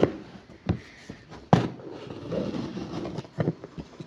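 Several sharp knocks and clatters from a box and its packaging being handled and opened, the loudest about a second and a half in, with a cluster of lighter taps near the end.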